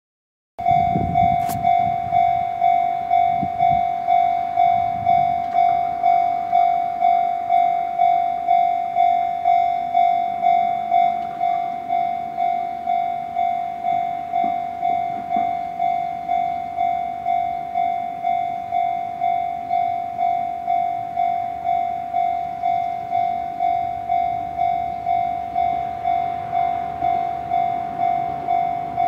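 Japanese level-crossing warning bell ringing, a repeated bell-like strike at about two a second. It starts abruptly just after the start. It signals that a train is approaching the crossing.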